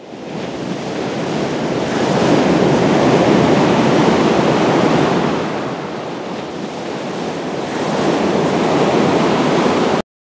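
Ocean surf breaking and washing on a beach, a steady rush that swells a couple of seconds in, eases, and builds again before cutting off suddenly near the end.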